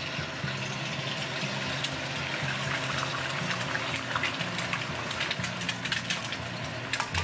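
An egg frying in hot oil in a wok: a steady sizzle full of sharp crackles and pops as the oil spits around the bubbling egg white.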